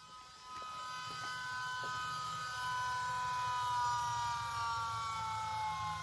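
Volvo electric power steering pump running, a steady electric whine over a low hum that slowly sinks in pitch as the pump speed drops. The system is still being bled, with minor air bubbles in the fluid.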